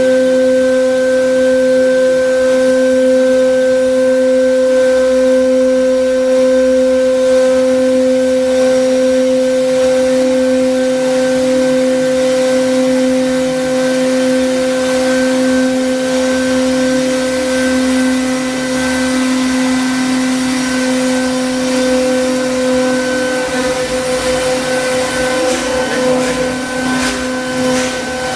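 Air-cooled 3 kW CNC router spindle running at a steady speed: a steady whine over a hiss of rushing air. Near the end the whine wavers and a few clicks come in.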